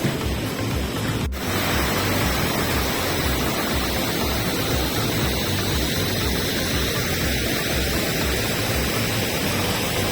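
Waterfall's steady rushing water, with a momentary break about a second in.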